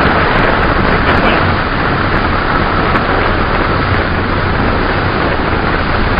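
Steady wind rushing over the microphone, a loud even noise with no breaks.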